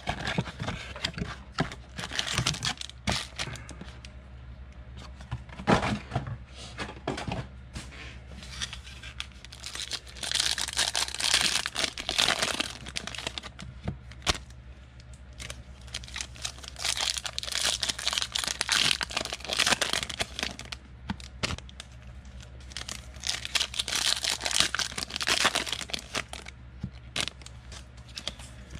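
A cardboard trading-card box of 2019 Panini Illusions football cards pulled open, then its card packs torn open by hand, the wrappers tearing and crinkling in several stretches of rustling with small clicks between.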